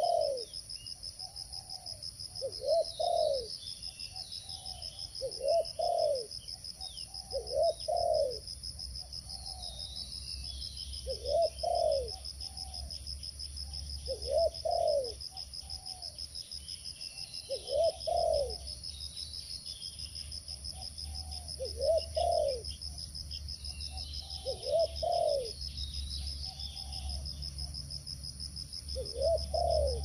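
Spotted dove cooing, a low arched coo phrase repeated about every three seconds, over a steady high-pitched insect drone.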